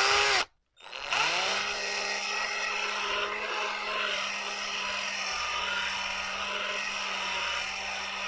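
Small electric drill with a 2 mm bit drilling a jet passage in the alloy body of a PWK 34 mm carburettor. A brief burst at the start, then about a second in the motor spins up again and runs at a steady pitch.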